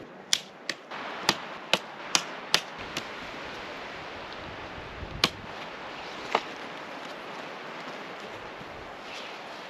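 Tent stakes being hammered into the ground: a quick run of seven sharp knocks, then two more single knocks, over steady wind noise.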